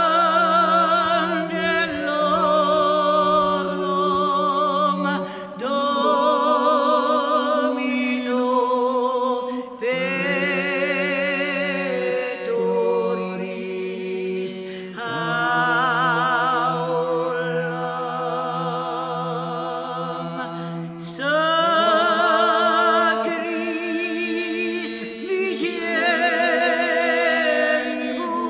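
Background music: an a cappella vocal group singing in several parts with strong vibrato over a held low drone note, in phrases that stop and begin again about every five seconds.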